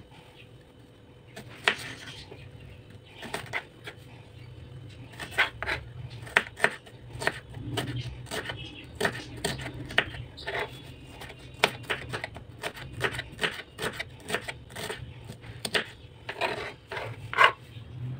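Kitchen knife slicing an onion into long slices on a wooden cutting board: irregular sharp taps of the blade striking the board, a couple a second, over a low steady hum.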